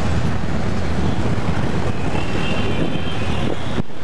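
Steady low engine and road rumble heard from inside a moving Hindustan Ambassador taxi in dense city traffic, with a faint high tone a couple of seconds in. The sound drops out briefly just before the end.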